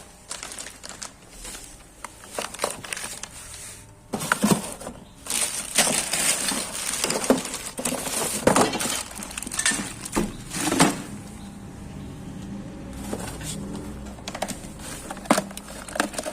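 Irregular knocks, clinks and scraping of hard objects being handled, busiest in the middle, with a high hiss through that stretch.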